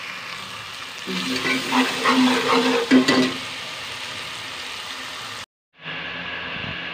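Masala sizzling as it fries in a metal pot. About a second in, a metal ladle stirs and scrapes against the pot for a couple of seconds. The sound cuts out briefly near the end, then the sizzling resumes.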